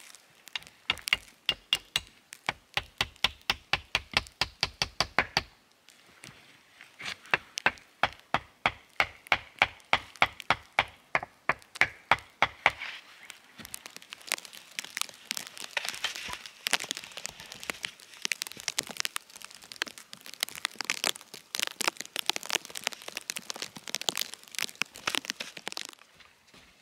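A hand tool working wood in rapid rhythmic strokes, about four sharp cracks a second in two runs with a short pause between them. Faster, denser rasping strokes follow from about halfway through and stop shortly before the end.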